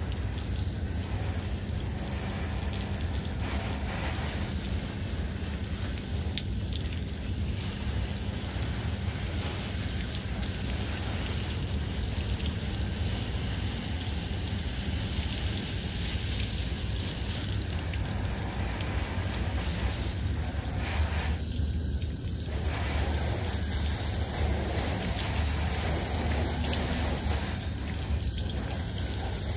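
Water spraying from a garden-hose nozzle onto a car's bodywork, a steady hiss with water running off, over a steady low rumble.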